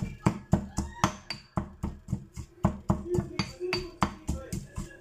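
Stone mortar and pestle pounding garlic, coriander roots and black pepper into a paste: a steady run of strikes, about four a second.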